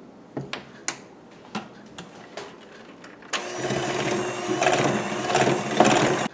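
A few clicks and knocks, then an electric KitchenAid hand mixer runs steadily for about three seconds, its beaters whirring through pudding in a stainless steel bowl, and stops abruptly.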